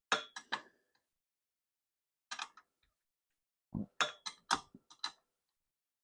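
Sharp metallic clicks from a bicycle being handled: a quick cluster at the start, a single click about two seconds in, and a run of about five at roughly four a second near the end, with a faint metallic ring under them.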